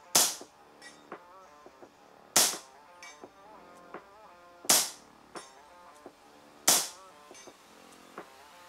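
Four shots from a moderated BRK Ghost High Power .25 calibre PCP air rifle firing slugs, about two seconds apart, each a sharp report that dies away quickly. Light clicks come between the shots.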